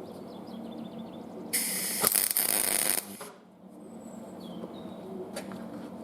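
Welding arc sizzling in one short burst of about a second and a half: a tack weld joining a steel 3/8 drive extension to a hook spanner. A steady low hum sits under it.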